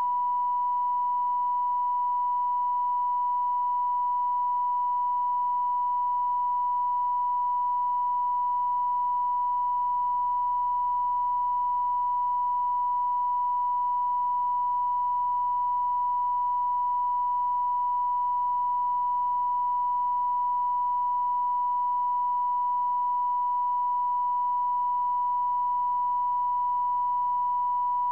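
Steady electronic test tone, one pure pitch held unbroken, recorded on the tail end of a Betamax videotape.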